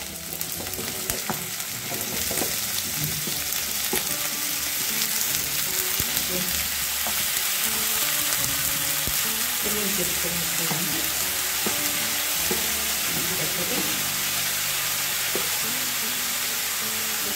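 Drumstick (moringa pod) pieces frying in coconut oil with onions in an aluminium kadai: a steady sizzle, with a wooden spatula stirring and scraping the pan now and then.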